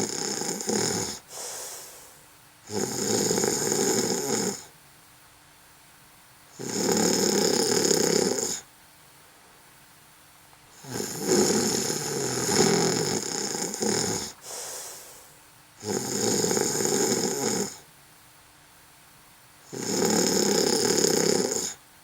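A person snoring in a steady rhythm: a loud snore of about two seconds roughly every four seconds, with quiet pauses between breaths.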